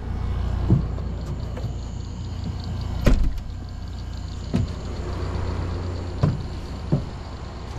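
Footsteps and handling thumps from a hand-carried camera on a walk, five or six spaced thuds over a steady low rumble.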